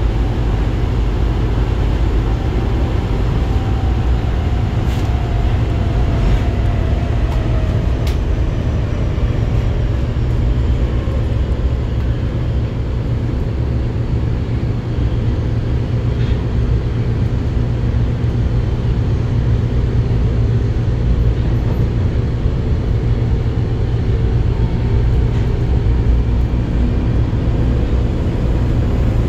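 Osaka Metro 22 series subway car running, heard from inside the car: a steady heavy low rumble of wheels on rail, with a faint whine gliding down in pitch over several seconds in the first third and a few light clicks.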